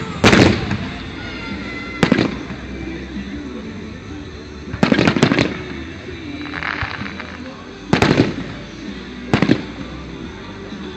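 Fireworks going off: a series of sharp bangs a second or two apart. One is a quick cluster of several reports, followed by a brief crackling fizz.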